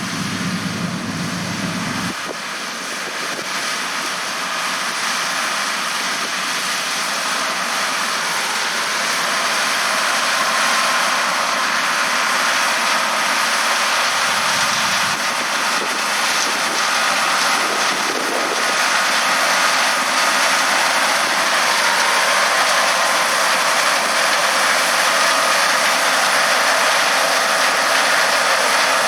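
John Deere 9650 STS combine running steadily while harvesting corn, a dense mechanical noise with a faint high whine, growing gradually louder as it comes closer.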